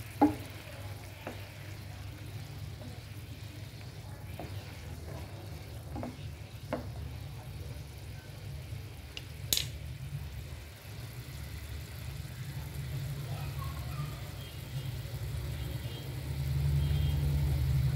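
Watermelon rind pieces simmering in boiling sugar syrup in a pan, with a bubbling, sizzling hiss and a few sharp knocks of a spoon against the pan. Under it runs a steady low hum that gets louder near the end.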